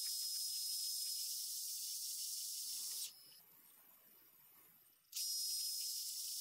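Fast-forwarded sound of a lathe turning a caprolon bushing: a steady high hiss with a few faint thin high tones. It cuts out about three seconds in and comes back about five seconds in.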